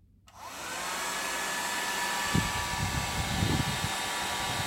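A home-built cordless vacuum cleaner, with a cordless screwdriver's motor driving a vacuum cleaner fan, is switched on about a quarter second in. It spins up quickly, then runs steadily with a whine over rushing air. A few low thumps come in the middle.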